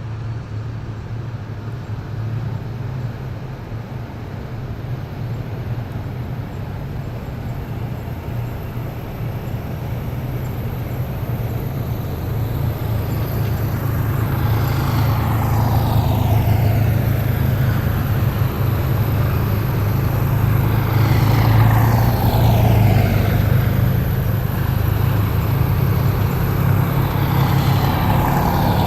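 Column of heavy military vehicles passing: a steady low engine drone that grows louder through the clip. From about halfway on, vehicles go by one after another, three times, each with a high whine that falls in pitch as it passes.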